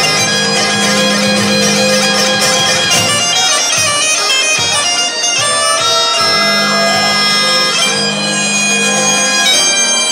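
Great Highland bagpipes playing a lively tune over their steady drones, backed by a live band.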